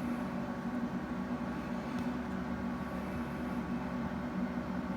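A steady low mechanical hum with an even background hiss.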